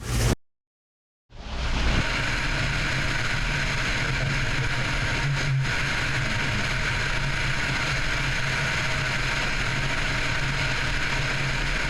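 Steady noise of a vehicle driving on the road, engine and tyre noise heard from inside the car. It sets in about a second in and holds at an even level.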